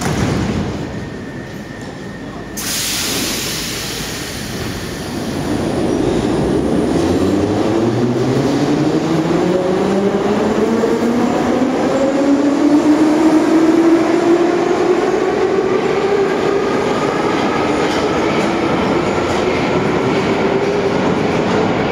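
Ezh3 metro train pulling out of a station. A thump comes first, then a burst of air hiss about two and a half seconds in, then the traction motors' whine climbs steadily in pitch as the train gathers speed, with wheel and rail noise throughout.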